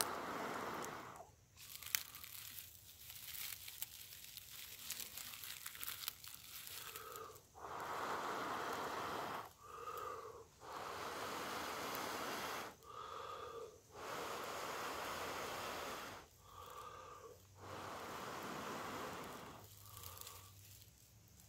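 A person blows long, steady breaths into a tinder bundle holding a friction-fire ember to coax it into flame. There are six or seven blows, each a second or two long, with short breaks to breathe in. The dry tinder crackles and crunches in the hands, mostly in the first few seconds, and the bundle is smoking toward ignition.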